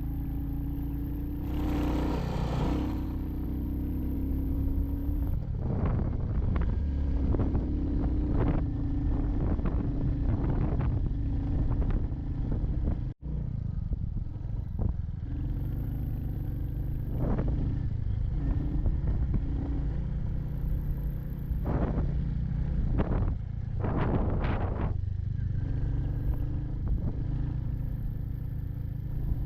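Royal Enfield Hunter 350's single-cylinder engine running steadily on the move, with short rushes of wind noise coming and going over it. The sound cuts out for an instant about thirteen seconds in.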